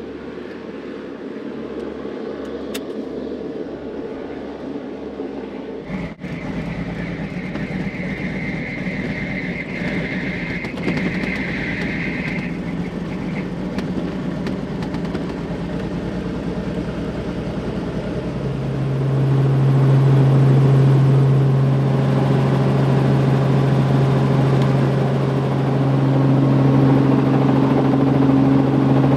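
Light helicopter's engine and rotor running, heard from inside the cockpit as a steady hum. It grows louder and more tonal about two-thirds of the way through as power comes up. A steady high tone sounds over it for several seconds in the first half.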